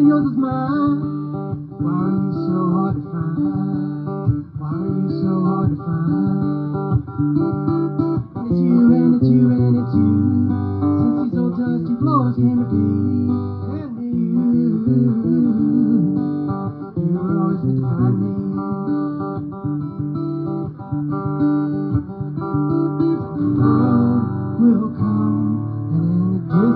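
Acoustic guitar played live in an instrumental passage of a song, notes plucked and strummed continuously with no clear singing.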